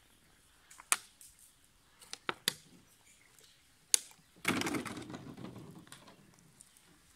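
A few sharp clicks, then a plastic water bottle hits the asphalt road and skids and rolls, a scraping rattle that fades over about a second and a half.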